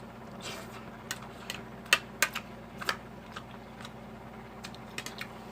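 Someone eating: irregular soft clicks and smacks of chewing a mouthful of food, close to the microphone.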